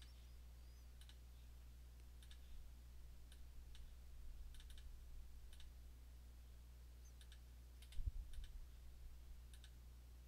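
Faint computer mouse clicks, scattered single and double clicks over a steady low hum, with a soft low bump about eight seconds in.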